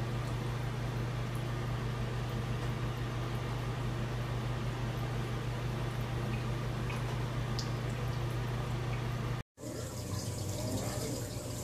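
A steady low hum under an even rushing noise, holding at one level. It cuts out abruptly for a moment near the end, and a similar steady noise resumes.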